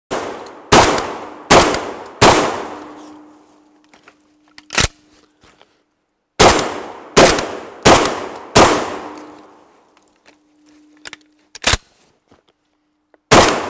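SRM 1216 semi-automatic 12 gauge shotgun firing in rapid strings: four shots about 0.7 s apart, each trailing off in echo, then a pause and another string of four, and a third string starting near the end. A single short, sharp clack falls in each pause.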